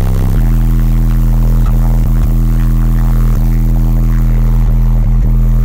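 Six Resilient Sounds Platinum 15-inch subwoofers in a car, driven by two Bass 30K amplifiers, playing a steady low bass tone at very high level. The tone shifts to a new pitch about half a second in and then holds, with a few brief dips.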